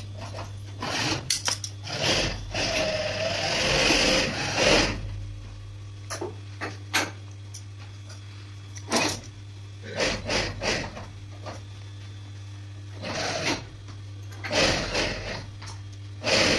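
White fabric work gloves being rubbed, pulled and turned by hand over a metal rod: irregular bursts of cloth rubbing and swishing, the longest lasting a couple of seconds, over a steady low hum.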